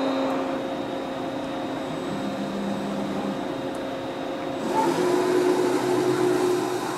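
CNC lathe machinery running with a steady whirring hum. About five seconds in it gets louder, and a steady whine comes in as a motor on the machine starts up.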